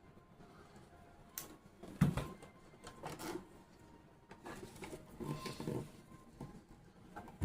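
Irregular knocks and clicks of pump parts being handled and fitted together during reassembly of a 16 gpm soft-wash pump, the sharpest knock about two seconds in.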